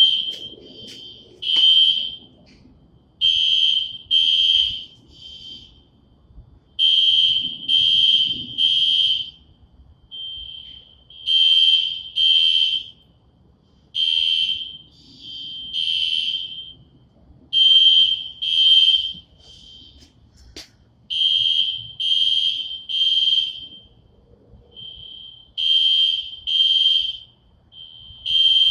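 School fire alarm going off: a high-pitched electronic tone beeping in repeated clusters of two or three short beeps, with brief pauses between clusters.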